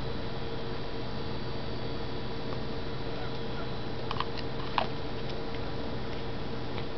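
Steady background hum and hiss, with a few faint clicks about four seconds in and a sharper one near five seconds as a plastic bubble-solution bottle and its wand are handled.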